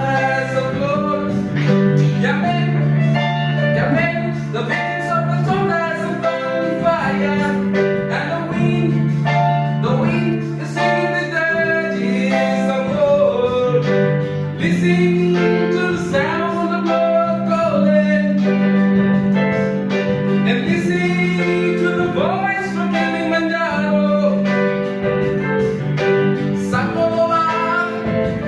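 A song: a voice sings a melody over a plucked guitar accompaniment with held low bass notes.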